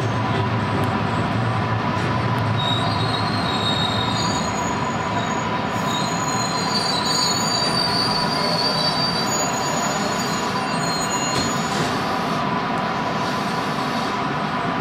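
Electric commuter train running slowly over a curve, its wheels squealing against the rails in thin high tones that come and go from about three seconds in until near the end, over the steady rumble and a constant hum of the running gear.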